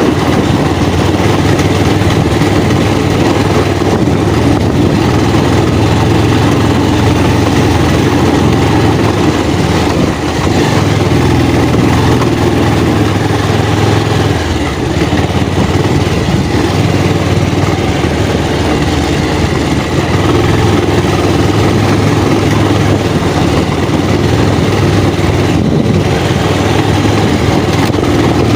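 Motorcycle engine running steadily under way, with a constant low hum and no sudden changes.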